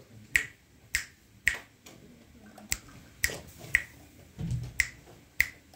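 A series of sharp clicks or taps, about two a second, with a couple of short pauses.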